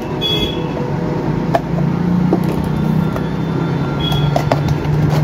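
A few light clicks and taps from a small cardboard product box being opened by hand, over a steady low hum that grows stronger about two seconds in.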